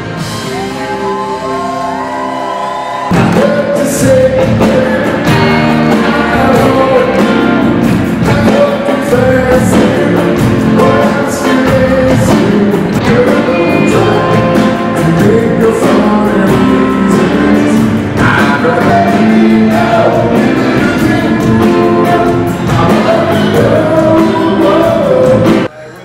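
Live rock band in concert: a harmonica plays alone over quiet backing for about the first three seconds, then the full band comes in loud with a male lead vocal. The music cuts off suddenly near the end.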